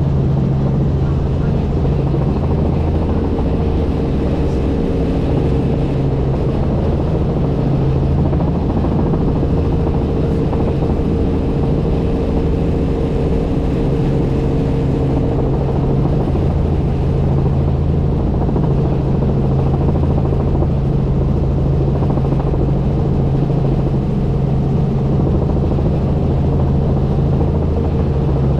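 Helicopter in steady flight: a constant engine and rotor drone with a few steady low hum tones, unchanging in pitch and level.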